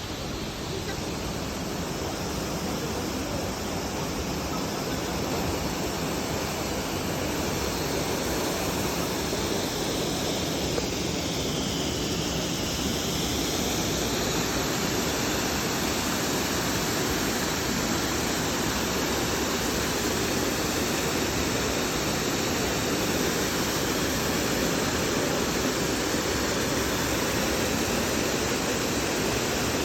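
Waikamoi waterfall rushing: a steady, even noise of falling water that grows slightly louder over the first half.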